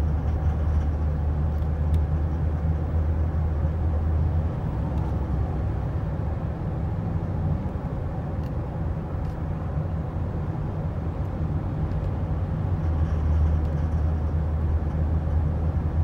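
Steady low engine and road drone inside a vehicle cabin at highway speed, with a few faint, light ticks scattered through it. The clip is offered as an example of engine ping (detonation, spark knock) under load.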